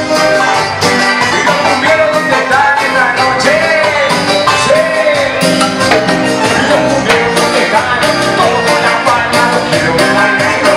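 A live band playing amplified music: drums and percussion keep a steady beat under guitar and a gliding melodic lead line.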